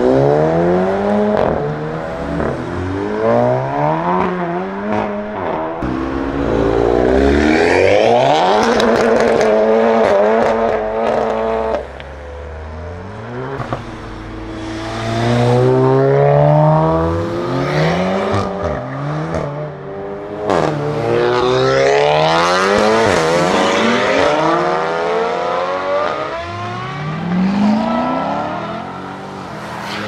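Tuned stage 2 Seat Leon Cupra turbo four-cylinders accelerating hard past, one car after another. Each engine note climbs and then drops back at a gear change.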